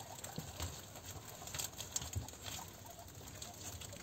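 A herd of guinea pigs feeding on fresh grass leaves: faint rustling and many small chewing clicks, with scattered soft chirps.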